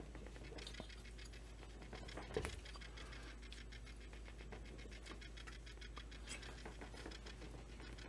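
Faint handling noises of a plastic chainsaw housing and its rubber impulse line being worked by hand: a run of small clicks and scrapes, with one sharper knock about two and a half seconds in.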